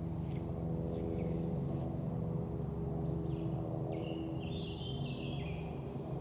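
Steady low mechanical hum outdoors, with a bird chirping a few short high notes about four seconds in.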